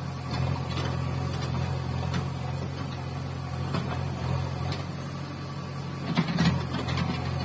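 Diesel engines of a JCB backhoe loader and a farm tractor running steadily, with a few knocks and a louder cluster of knocks about six seconds in.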